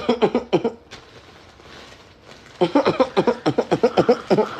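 A person laughing in two bursts of quick, rhythmic "ha-ha" pulses, a short one at the start and a longer one from a little past halfway.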